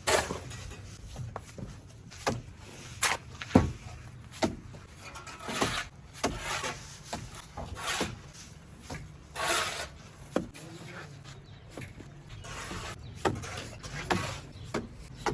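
Bricklaying hand work: irregular knocks and short scrapes of a trowel on mortar and bricks, over a low steady hum.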